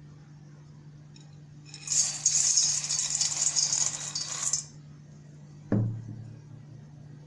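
Broken tea biscuits poured from a ceramic bowl into a stainless steel mixing bowl: a dense clattering rattle lasting about three seconds. About a second after it stops comes a single knock, over a low steady hum.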